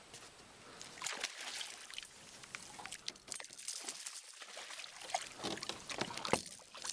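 Water splashing and trickling in short, irregular surges, with scattered sharp clicks; one louder splash near the end.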